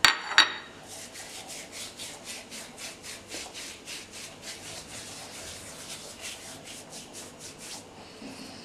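Dried thyme rubbed briskly between the palms, a rapid, even dry rustling of about four strokes a second that stops shortly before the end. Two sharp clicks come just before the rubbing starts.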